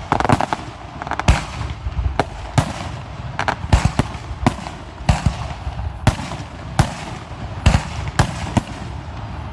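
Aerial fireworks shells bursting in quick succession: a string of loud, sharp bangs about every half second to a second, each trailing off in an echo.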